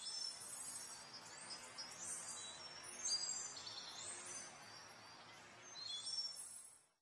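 Faint birds chirping in short, high calls, some gliding in pitch, over a soft steady hiss. The sound cuts off abruptly near the end.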